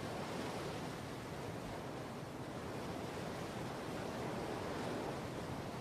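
Floodwater rushing steadily through a storm drainage channel.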